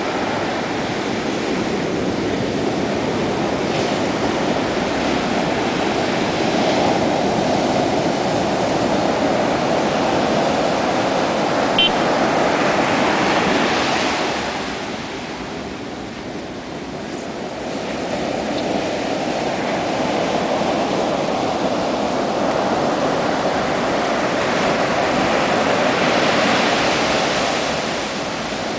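Ocean shore-break waves crashing and washing up the beach in a continuous loud rush of whitewater. It swells, eases for a couple of seconds around the middle, then swells again.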